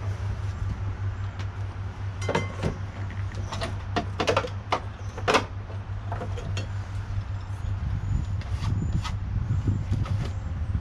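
Nigerian Dwarf goat feeding from a metal tray on a milking stand: scattered sharp clicks and clinks, clustered between about two and five seconds in and twice more near the end, over a steady low hum.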